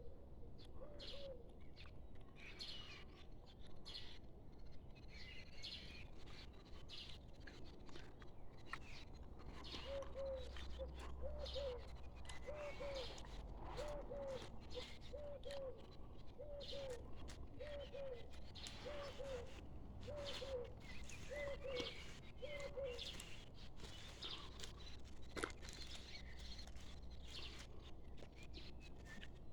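Birds chirping and singing, with a lower call repeated about every second and a half through the middle, over a faint steady low rumble.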